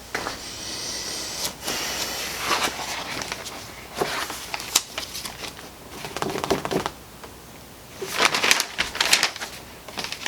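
Handling noises: rustling with irregular clusters of clicks and light knocks.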